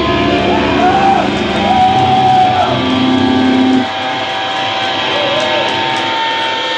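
Hardcore punk band's amplified, distorted electric guitars in a crowded room, with sliding notes over a low held note; about four seconds in the playing drops back, leaving a steady high ringing tone over amp noise.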